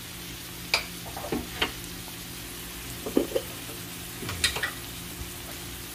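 Chopped onions and spice paste sizzling steadily in a frying pan, with a few short clicks and scrapes scattered through.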